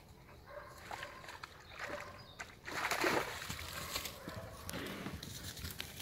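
Two German hunting terriers playing at a pond's edge, splashing through the shallow water, with a louder rush of splashing about three seconds in.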